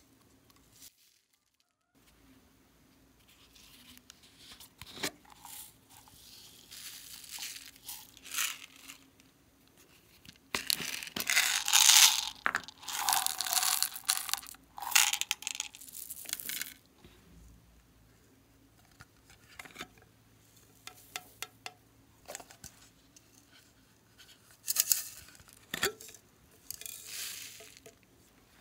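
Small plastic beads and sprinkles poured out of plastic containers, rattling and hissing in several bursts, the longest and loudest from about ten to seventeen seconds in. Scattered sharp clicks and taps come between them.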